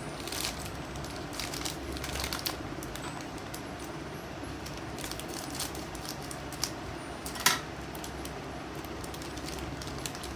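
Plastic ice cream wrapper being handled, rustling and crinkling in short bursts with scattered small clicks, over a steady low background hum. The loudest crackle comes about seven and a half seconds in.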